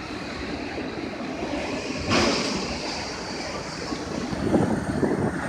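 Steady rushing noise of a freight train rolling past, mixed with wind on the microphone. It swells briefly about two seconds in and rumbles a little more near the end.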